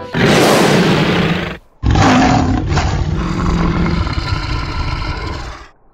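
Loud wind buffeting the microphone, a steady rushing rumble in two stretches with a brief break about one and a half seconds in.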